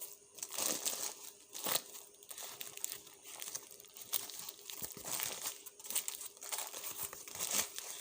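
Hamburger being eaten close to the microphone: irregular crinkly chewing noises, about one or two a second.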